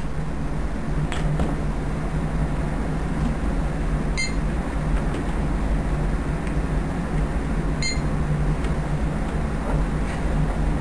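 Library self-checkout kiosk giving two short high beeps, about four and eight seconds in, as items are scanned, over a steady low electrical hum.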